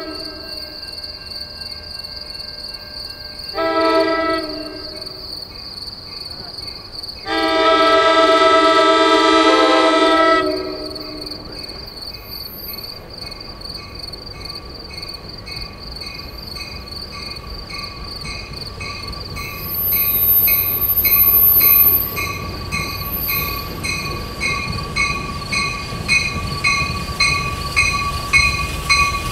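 NJ Transit commuter train's multi-tone horn sounding on its approach: a short blast about four seconds in, then a long blast of about three seconds. Then the train's rumble rises as it nears, with a regular ticking about twice a second as it rolls into the station.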